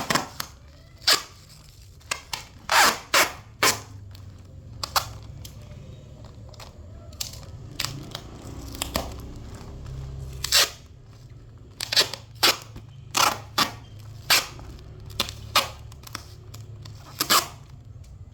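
A series of irregular sharp clicks, snaps and crackles from things being handled on a work surface, about twenty in all, with a low hum beneath.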